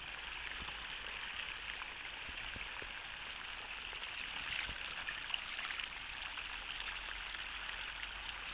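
Water trickling and splashing as it is scooped up in cupped hands and let fall back into a shallow field channel, over a steady watery hiss with small scattered drips.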